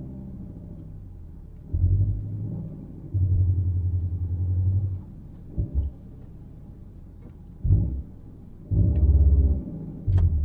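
Low rumble from a car on the move: a steady low drone broken by several loud bursts of deep rumble, each up to about two seconds long, with a sharp click near the end.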